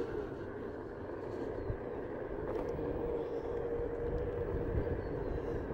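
Onewheel GT self-balancing electric board rolling on concrete while carving: steady tire and hub-motor noise with a faint, steady whine from the hub motor.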